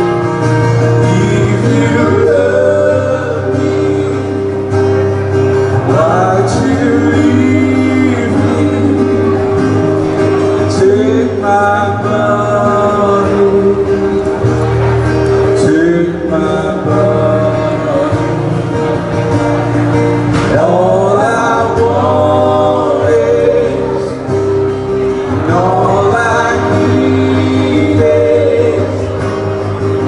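Live acoustic band music: a man singing in phrases over strummed acoustic guitar and sustained accompaniment.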